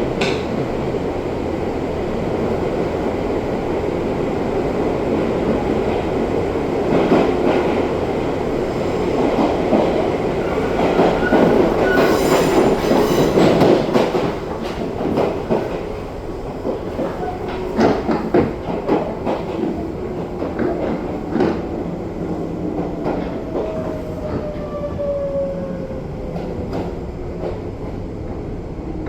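Izu Kyuko 2100-series electric train running, heard from on board: a steady rumble of wheels and running gear with scattered rail-joint knocks. Louder stretches come between about 7 and 14 seconds in, and a faint whine falls in pitch in the last few seconds as the train slows.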